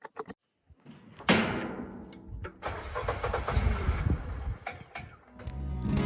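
An engine starts with a sudden catch about a second in, then runs with a steady low rumble. Music comes in near the end.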